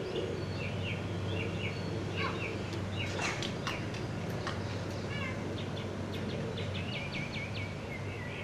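Small birds chirping with many short, quick calls, including a run of rapid repeated chirps about seven seconds in, over a steady low hum. A few sharp clicks come about three seconds in.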